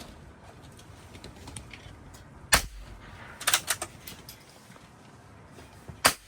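Two .22LR rifle shots about three and a half seconds apart, with a quick run of clicks between them.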